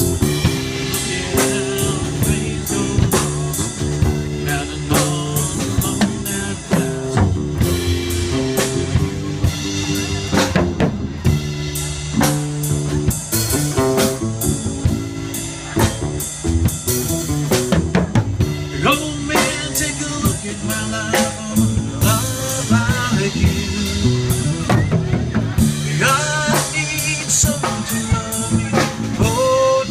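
Live band music: a drum kit playing a steady beat under the bass line of an acoustic bass guitar.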